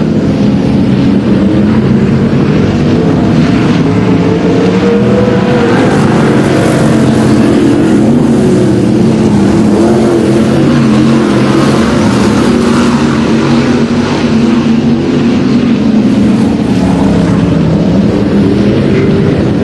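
Several sprintcar V8 engines running on a dirt track, loud and continuous, their pitch rising and falling as the cars speed up and slow down.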